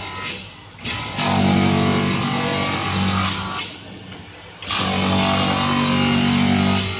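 CNC dual-head Low-E coating deletion machine grinding the low-E coating off the edge of a glass sheet: a motor hum under a harsh abrasive hiss. The sound drops away briefly twice, a little under a second in and about four seconds in, then resumes.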